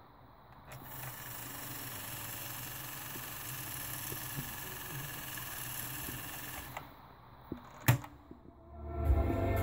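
Tandberg TCD 340 A cassette deck with its music stopped: a steady faint hiss for about six seconds, then a sharp click from its transport controls about eight seconds in, after which the music comes back near the end.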